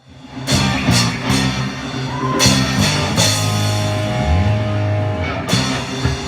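Rock music played on guitars with a drum kit, starting straight out of silence, with sustained low notes and repeated drum hits throughout.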